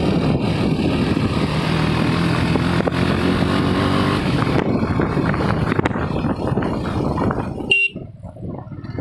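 KTM Duke 250's single-cylinder engine running steadily under way, with wind and road noise. Near the end comes one short, sharp high-pitched sound, and then the engine noise drops away suddenly.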